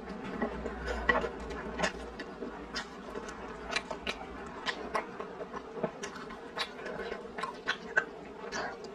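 Close-miked eating: chewing and slurping instant noodles, with many short wet mouth clicks and smacks scattered throughout.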